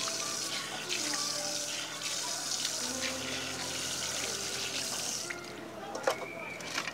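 Water running from a tap over a wooden cutting board as it is rinsed; the splashing stops about five seconds in.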